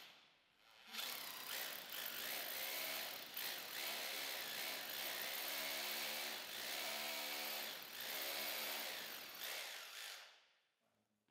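Electric rotary hammer drill boring into a wall. After a brief stop at the start, it starts again about a second in, runs steadily with a motor whine for about nine seconds, and stops near the end.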